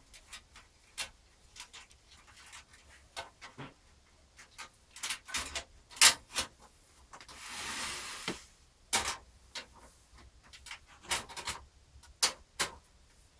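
Clicks and knocks of a floppy drive being handled and fitted into a PC case's metal drive bay, with a longer scrape a little past halfway as it slides in.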